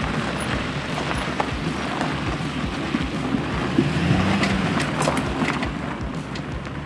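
Truck camper driving on a dirt road: steady road and engine rumble with scattered rattles and knocks, a little louder about four seconds in.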